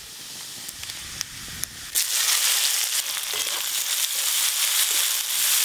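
Hot oil sizzling in a large aluminium wok as spices temper in it. About two seconds in, the sizzling jumps suddenly much louder as sliced onions go into the oil, then carries on steadily while they are stirred with a spatula.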